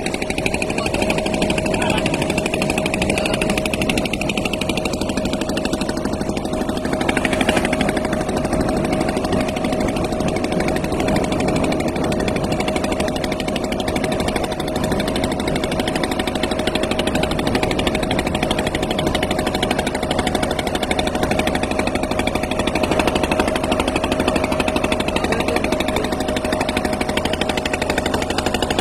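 Boat engine running steadily at a constant speed, a continuous chugging drone with a steady hum.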